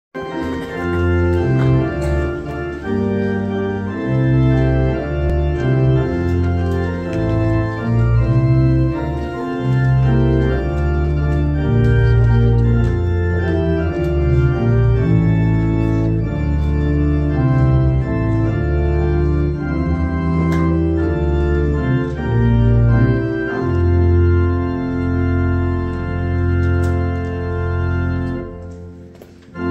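Church organ playing a hymn tune in held chords over a moving bass line, the introduction to a hymn. The last chord dies away near the end.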